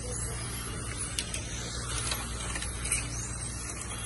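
Radio-controlled drift cars running on an asphalt track: high electric-motor whines rising and falling in pitch, with a few short sharp ticks, over a steady low hum.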